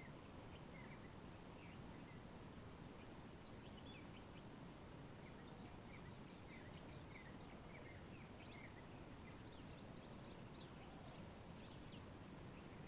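Faint chirping of small birds, many short quick notes, thickest from about three seconds in, over a steady low background rumble.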